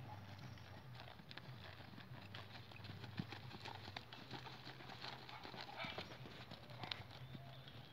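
Hoofbeats of a young horse under saddle on arena sand: soft, irregular footfalls as it goes past.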